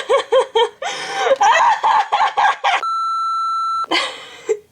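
A quick run of short, squawk-like pitched calls, several a second, for nearly three seconds, followed by a steady electronic beep lasting about a second.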